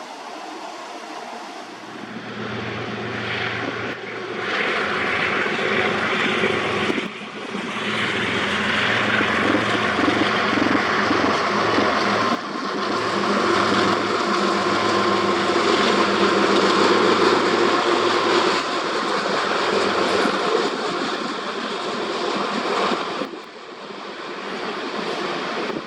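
Diesel freight locomotives running past, a steady low engine drone under a broad rushing rail noise. The sound breaks off and changes abruptly a few times.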